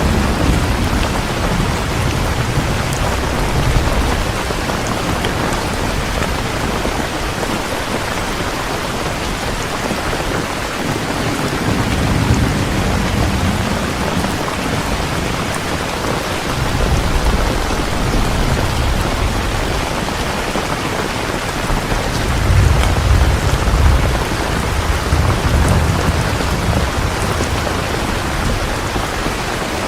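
Steady rain pouring down, an even hiss of falling drops, with low rolling thunder rumbles swelling several times, at the start, around the middle, and strongest about three-quarters of the way through.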